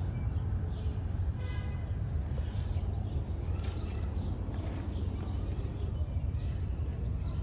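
Outdoor background noise: a steady low rumble with faint, scattered bird chirps.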